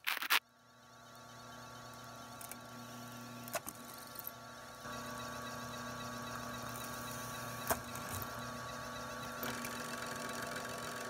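Drill press motor running steadily with a hum that grows louder over the first couple of seconds and steps up about five seconds in, as the twist bit drills holes through a plexiglass sheet. A brief loud noise right at the start and a few sharp clicks stand out.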